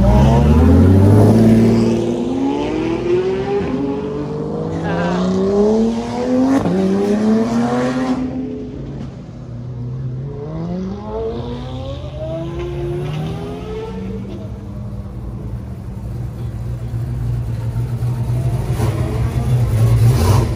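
Sports cars driving off one after another. A Porsche 911 accelerates away, its engine note climbing and dropping back at each upshift for about eight seconds. Another car revs up more quietly in the middle, and near the end a classic Ford Mustang rolls close by with a steady low engine rumble that grows louder.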